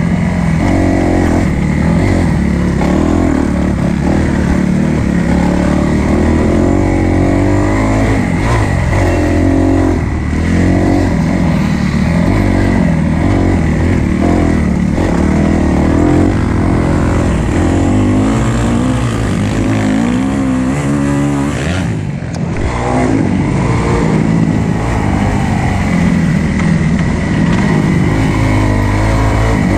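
Kawasaki KX250F's single-cylinder four-stroke engine revving up and down as the motocross bike is ridden hard around a dirt track, with wind rushing over the microphone. About three-quarters of the way through the engine note briefly drops away before picking up again.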